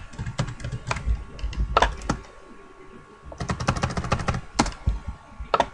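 Computer keyboard typing in short bursts of keystrokes, with pauses between the bursts.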